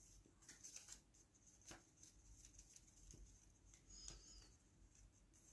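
Near silence with faint rustling and a few light taps: oracle cards and paper being handled.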